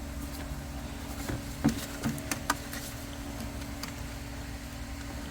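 A few faint clicks and taps of plastic parts being handled as a wire is fitted into the slots of an engine air filter housing, over a steady low background hum.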